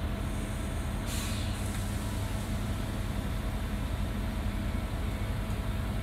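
SJ X2000 high-speed train's electric power car standing at the platform, humming steadily with a low drone and a couple of steady tones from its running equipment. A brief hiss about a second in.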